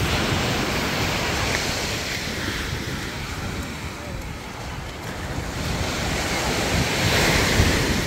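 Ocean surf breaking and washing up the beach, swelling at the start and again louder near the end, with wind buffeting the microphone.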